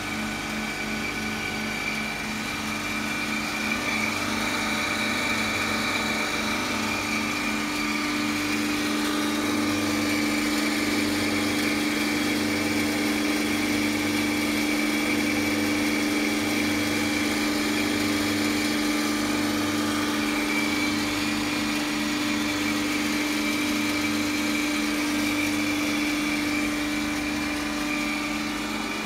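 Transformer oil filtration machine running: a steady motor-and-pump hum with a high whine above it and a slow, regular throb in the low end about once a second.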